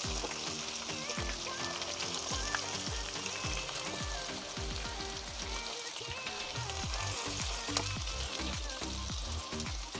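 Masala-coated raw plantain slices shallow-frying in oil in a pan, with a steady sizzle of bubbling oil.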